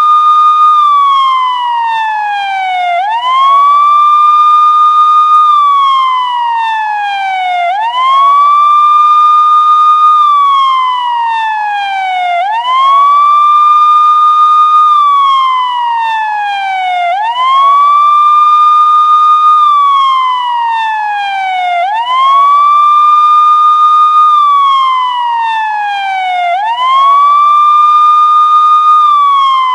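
Police siren wailing. Each cycle sweeps quickly up to a high tone, holds it for a second or so, then glides steadily back down, repeating about every four to five seconds.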